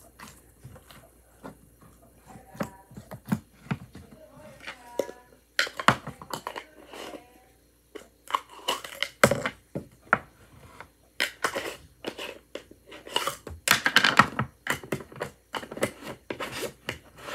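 Slime being squished, pressed and pulled by hand, giving runs of sticky crackling pops and clicks. They are sparse at first and come thick and fast from about six seconds in.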